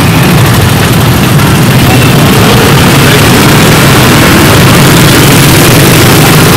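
Steady running of a Honda Win's small single-cylinder motorcycle engine, close by, amid the idling engines of many surrounding scooters and motorbikes in a traffic jam.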